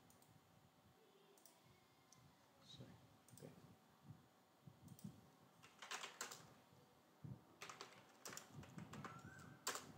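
Faint keystrokes on a computer keyboard, scattered and irregular, coming in short clusters in the second half.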